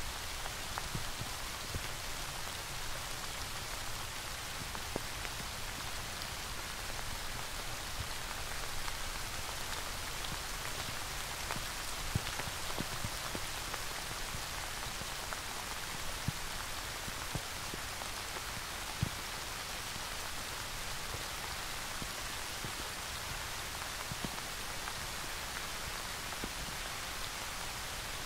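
Steady rain falling, an even hiss with a scattering of louder individual drop strikes standing out now and then.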